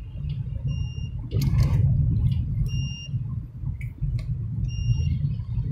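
Car driving on a wet road, heard from inside the cabin: a low steady road rumble, with a short high electronic beep repeating about every two seconds. A brief rushing sound comes about a second and a half in.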